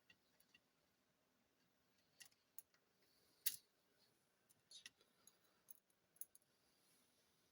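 Faint, scattered small clicks and taps of a screwdriver and screws during laptop reassembly, the loudest click about three and a half seconds in.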